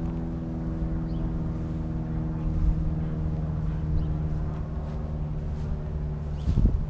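Vehicle engine idling, a steady hum at one pitch. Near the end, wind buffets the microphone.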